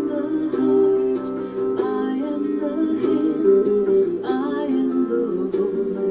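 A song: a voice singing over a plucked-string accompaniment, steady throughout.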